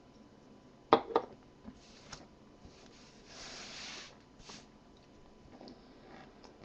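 A small shot glass set down on a desk: two sharp knocks close together about a second in, then a few light clicks and a soft breathy hiss midway through.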